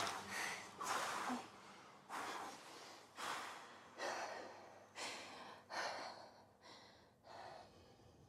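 A woman breathing heavily in a run of about nine ragged, gasping breaths, roughly one a second, that grow fainter toward the end.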